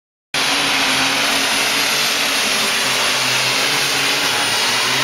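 Alcohol-fuelled super stock pulling tractor at full throttle, dragging the weight-transfer sled on the test hook. The loud, steady, high-pitched engine noise cuts in suddenly about a third of a second in and holds without a break.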